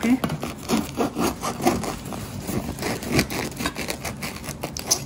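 Knife sawing lengthwise through a crusty home-baked bread loaf: the crisp crust crackles and scrapes with many quick, short strokes.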